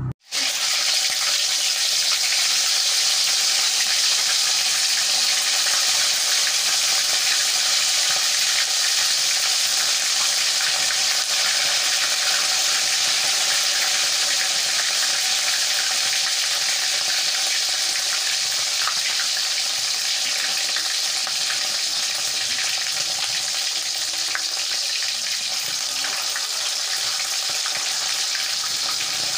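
Pieces of galangal-spiced chicken, boiled and drained, deep-frying in hot oil in a wok: a loud, steady sizzle that starts abruptly just after the beginning.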